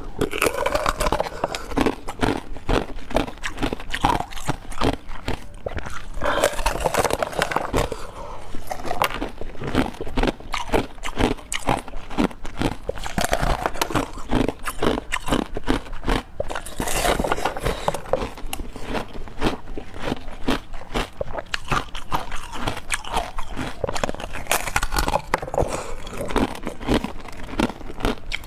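Close-miked eating: a run of crunchy bites and chewing, with many sharp crackling crunches one after another.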